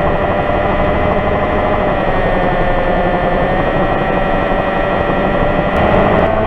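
An engine running steadily under load, with a whine that shifts a little in pitch now and then.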